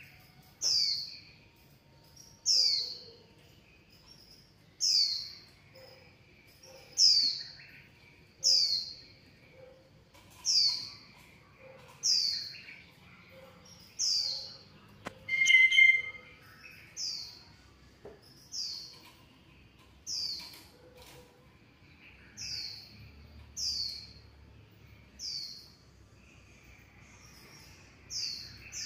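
A calling animal repeating a short, high chirp that falls in pitch, about one every one and a half to two seconds, with fainter lower chirps in between. A brief, louder crackle comes about halfway through.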